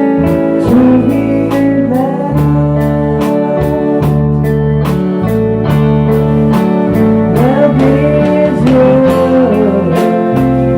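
A live rock band playing: guitar with bending notes over bass and a steady drum beat.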